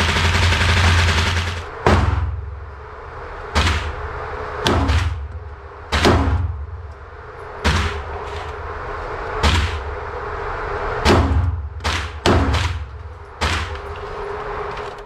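A loud steady noise for the first second and a half, then a series of about ten handgun shots fired at an indoor range, each ringing off the walls. The shots come every second or two, a few in quick pairs.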